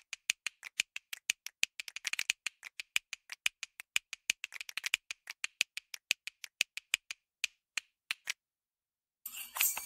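A fast, slightly uneven run of sharp clicks, about four to five a second, stopping about eight seconds in. After a short gap, a louder, fuller sound starts just before the end.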